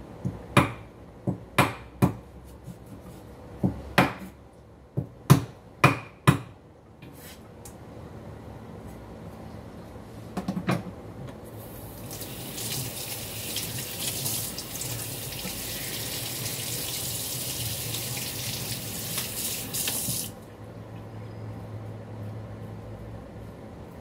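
About ten sharp knocks of a knife chopping on a wooden cutting board in the first six seconds. Then, after a brief clatter, a kitchen tap runs into the sink with a steady hiss for about nine seconds and is shut off abruptly.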